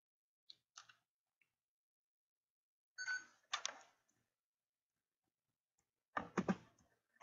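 A few short clusters of clicking and knocking, about a second in, around three seconds in and again near the end, with dead silence between them.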